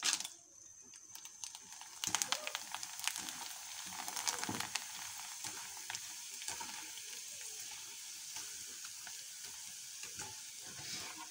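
Dried papad pieces dropped into hot cooking oil in a pan, crackling sharply from about two seconds in as they puff up, then settling into a steady sizzle while a wire strainer stirs them.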